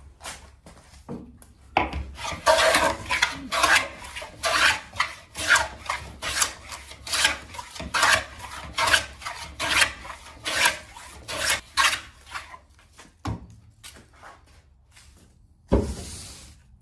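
Antique wooden jack plane cutting along the edge of a softwood board, a quick run of about two strokes a second, each a short rasping hiss of the iron taking a shaving. Near the end there is a single louder knock.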